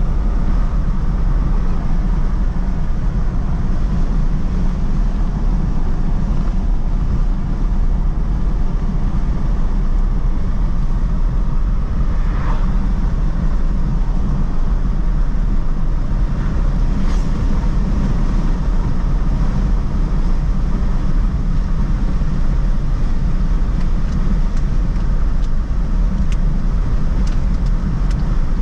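Steady low rumble of a vehicle cruising at highway speed: road and wind noise, unbroken and even in level.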